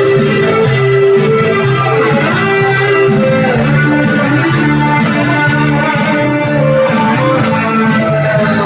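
Instrumental music with a guitar-like plucked melody over a steady beat.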